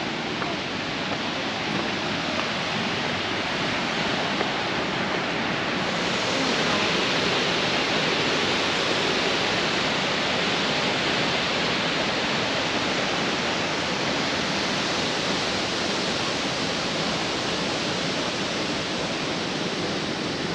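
Waterfall: a steady roar of falling water, growing a little brighter about six seconds in.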